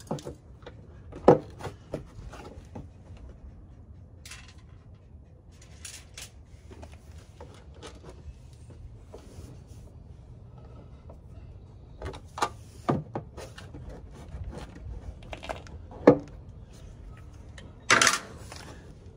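Scattered metallic clicks and knocks from hand tools and bolt hardware as a mud flap is bolted to its bracket. A few are sharper than the rest, and there is a short, louder burst of handling noise near the end.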